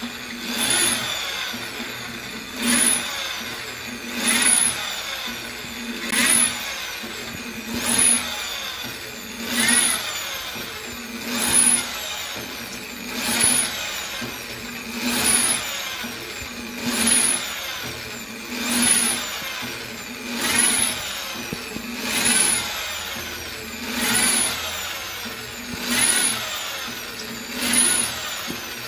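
Electric drill boring into ceramic wall tile, its motor surging in short repeated bursts about every second and a half to two seconds, the pitch rising with each burst.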